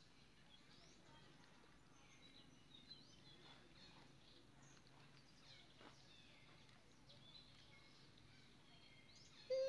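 Faint, scattered bird chirps over a quiet outdoor background. Near the end a loud, short call with a clear pitch breaks in, much louder than the rest.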